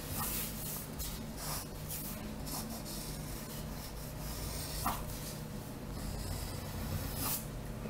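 Pencil lead scratching on drawing paper in short, irregular strokes while curves and lines are sketched.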